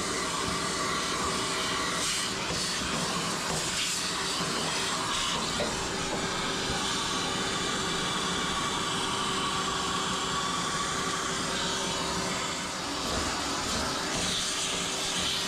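Vacuum cleaner running steadily, sucking lint and debris out of a dryer's cabinet.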